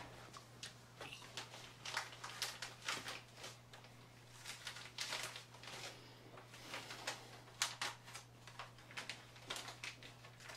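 Plastic vacuum-sealer bags rustling and crinkling in irregular bursts as they are handled, over a steady low hum.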